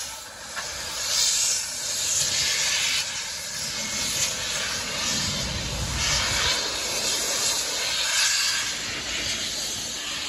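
Steam locomotive hissing loudly as it releases steam, with swells every second or two.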